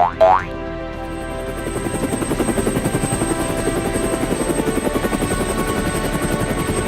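Cartoon helicopter sound effect: fast rotor chopping that fades in about a second in and grows louder, with a thin steady high whine. A short rising boing comes at the very start, and background music runs under it.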